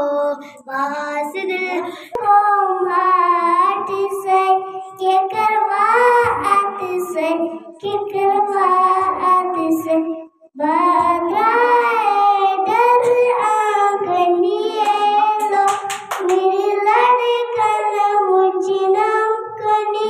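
A child singing solo into a handheld microphone, a wavering melody broken by short breaths between phrases. About halfway through, the voice cuts off briefly and a second child's singing begins.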